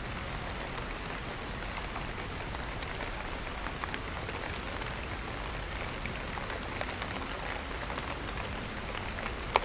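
Steady rain: an even hiss with scattered sharp drop clicks, and one louder click near the end.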